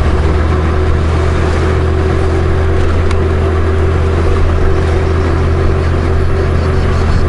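Honda Gold Wing's flat-six engine running steadily at cruising speed, with steady wind and road noise over the onboard microphone.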